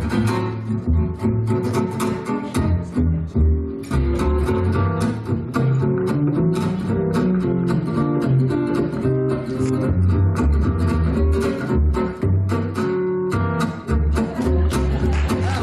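Solo plucked-string instrumental music: a fast, busy stream of plucked notes over a steady, rhythmic line of deep bass notes.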